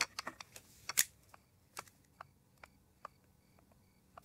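Faint clicks and taps of a pen and notepad being handled, the sharpest click about a second in, followed by a few light ticks as the pen starts on the paper.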